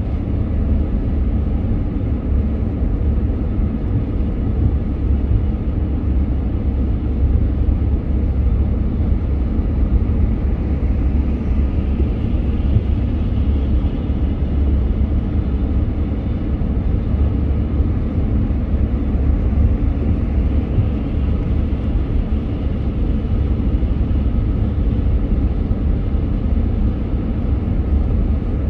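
Steady low rumble of a car driving through city traffic: engine and road noise.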